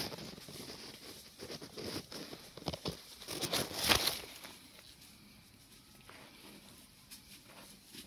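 Dry leaf litter and twigs rustling and crackling, in a cluster of sharp crackles about three to four seconds in, then dying down to a faint hiss.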